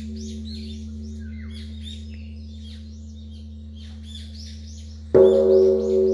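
Large bell ringing on after a stroke, its deep hum slowly fading with a pulsing beat in it, then struck again about five seconds in with a sudden loud ring. Small birds chirp throughout.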